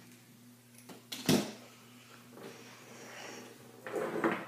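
Plastic action figures and a toy wrestling ring being handled on a table: a single sharp knock about a second in, then quiet, and more handling and knocking near the end.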